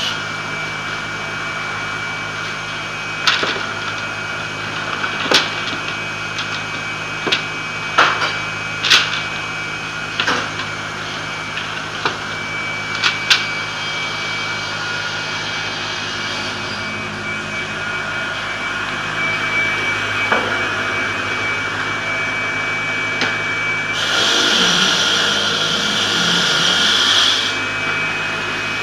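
A twelve-blade multi-rip circular saw machine (Perun MSP-1300 Skat, 22 kW) running steadily, with several sharp knocks of wooden strips being handled in the first half. About 24 s in, a louder hiss rises over the hum for about three seconds as a latoflex sheet goes through the blades.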